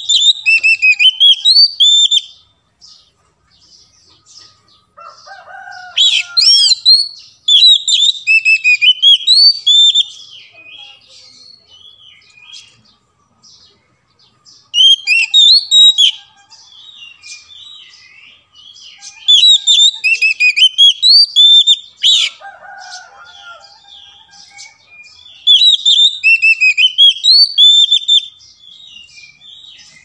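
Oriental magpie-robin singing in about five bursts of rapid, varied whistled phrases, each two to four seconds long with pauses between, and a few lower, harsher notes before two of the bursts.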